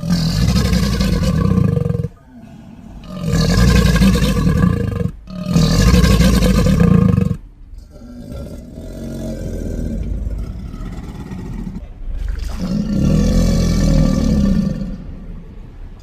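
Crocodilian giving a series of deep bellows, about five, each lasting one to two seconds with short pauses between. The middle call is a longer, quieter growl.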